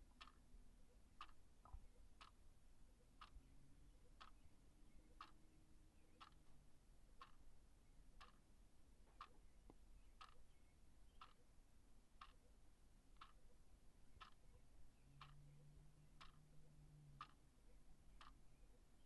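Wall clock ticking steadily, faint, about one tick a second.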